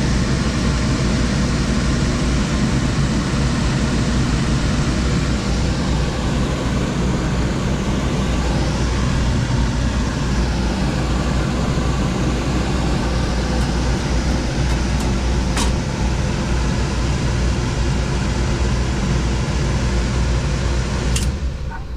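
Steady machine noise with a low hum, running evenly, with a single sharp click near the end.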